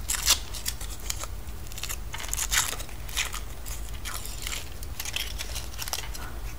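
Foil wrapper of a chocolate surprise egg crinkling and tearing as it is peeled off by hand, in irregular short, crisp crackles.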